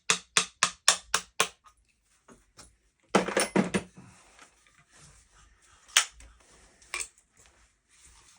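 Metal clicks and clatter from a Panser EGX 500 bullpup 12-gauge shotgun being worked during takedown: a quick, even run of clicks, about four a second, fading out within the first second and a half, then a loud clatter of parts a little after three seconds and two single sharp clicks near the end.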